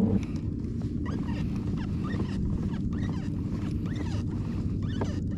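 Water lapping and gurgling against a plastic kayak hull in small irregular splashes, over a steady low hum.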